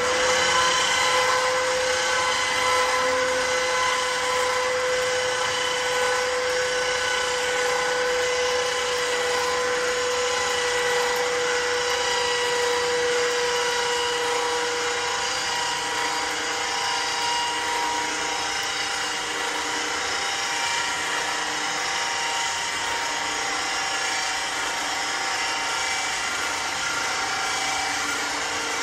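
Small 12-volt electric winch motor running steadily with a constant whine, reeling in cable to hoist a steel-framed dump box up over a pulley, powered by a small motorcycle battery.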